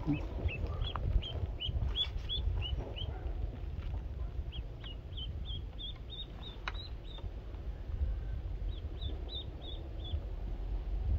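A duckling peeping in three quick runs of short, high chirps, with short pauses between them, as it is dangled from a fishing pole as live bait. A steady low rumble runs underneath.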